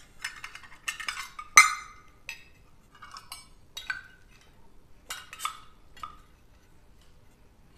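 Stainless steel measuring cups clinking together as the nested set is pulled apart and set down one by one: a string of sharp metallic clinks with a short ring, the loudest about one and a half seconds in.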